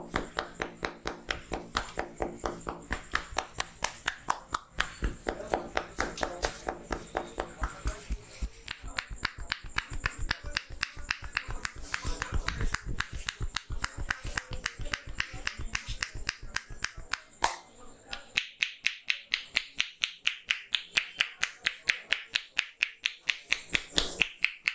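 Rapid, regular percussive massage strokes, the barber's hands slapping and clapping on the head and shoulders at about four strikes a second. About three-quarters of the way through, the strikes turn sharper and brighter.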